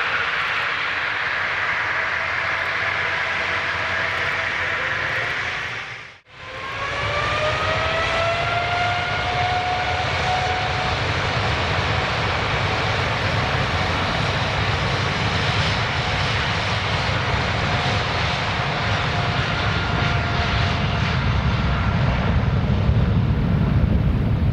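Jet airliner engines running. After a short break about six seconds in, an engine whine rises in pitch and levels off, then a steady jet noise with a heavier low rumble that builds toward the end.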